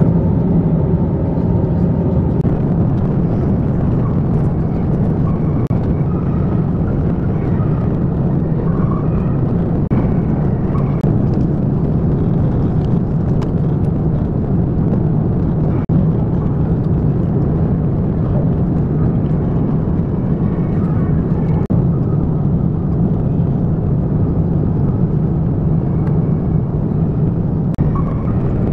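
Steady engine and airflow noise inside the cabin of an Airbus A350-900 in flight, a constant low roar.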